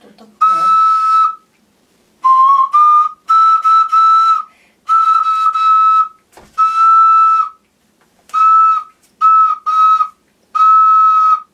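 An ocarina played in short, separate, detached notes with pauses between them, mostly on the same high note with a slightly lower pair about two seconds in. The high E (mi) sits flat, and the teacher wants it a little higher.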